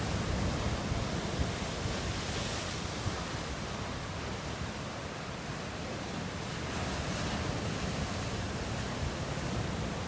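Ocean surf breaking and washing ashore in a steady rush, swelling and easing as sets of waves come in, with a little wind buffeting the microphone.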